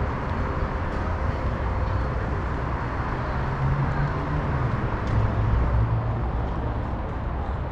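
Street traffic noise: vehicle engines and tyre noise on a city road, a steady rumble that grows a little louder past the middle as a vehicle passes close by.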